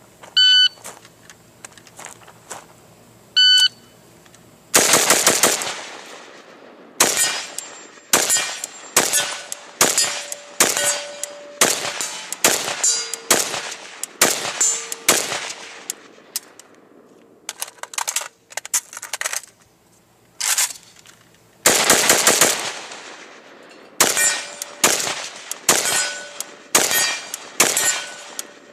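Shot timer beeps twice, then an AK-47 (7.62×39) is fired in quick strings of single shots, about one to two a second, with a brief lull in the middle of the string. A faint ringing tone lingers after some of the shots.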